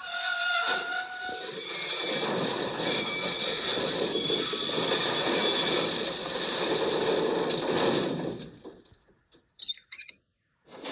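A train rolling past with a steady rumble and rattle of wheels on rails, fading out about eight seconds in, and a short falling squeal near the end.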